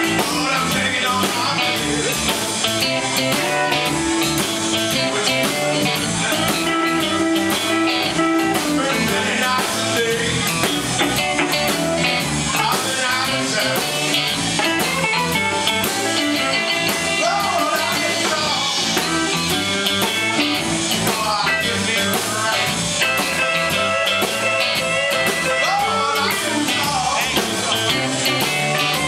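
Live blues-rock band playing: electric guitars over bass and drum kit, with a man singing into the microphone.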